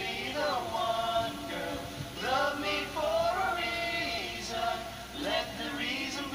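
Several men singing a love song together over backing music.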